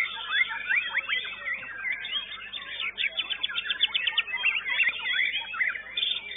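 White-rumped shama (murai batu) singing a fast, varied song of whistles and quick up-and-down sweeps, with a rapid run of sharp repeated notes about three seconds in.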